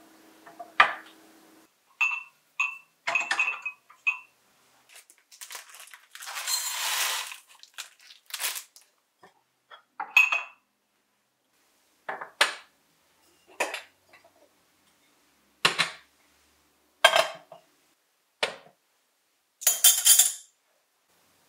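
Porcelain teaware and a wooden tray being set down on a counter: about a dozen separate clinks and knocks, some ringing briefly, with a longer scrape about six seconds in. Near the end a spoon scrapes and clinks in a small ceramic bowl.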